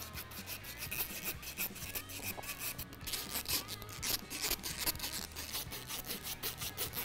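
Hand socket ratchet clicking in quick, irregular runs as bolts are backed out of the base of a bucket seat.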